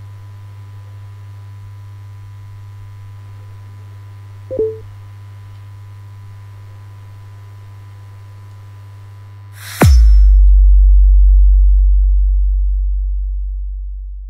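Electronic soundtrack: a steady low drone with a short blip about four and a half seconds in. Near the end comes a sudden falling sweep into a loud deep bass boom that slowly fades.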